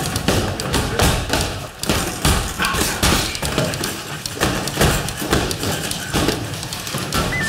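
A rapid series of heavy thumps and knocks, about three a second.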